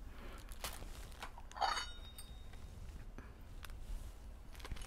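Quiet room with faint handling noises: a few light clicks and taps, and a brief rustle about a second and a half in.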